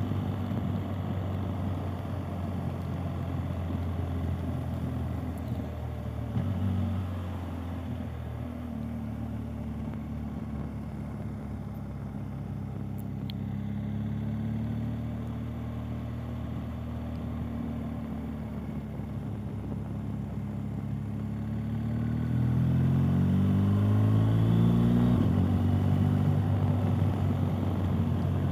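BMW R 1250 GS Adventure's boxer-twin engine running under way, heard through a helmet camera. It runs steadily through slow bends, then rises in pitch as the bike accelerates, with a gear change near the end.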